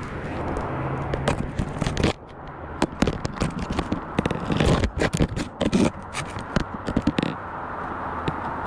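Handling noise: a dense run of close scrapes, clicks and knocks from about two to seven seconds in, as the camera is set down on the floor, with steady hiss before and after.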